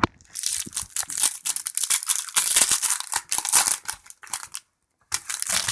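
Crinkling and tearing of a hockey card pack's wrapper as it is torn open, in a long crackly stretch and then a short burst near the end.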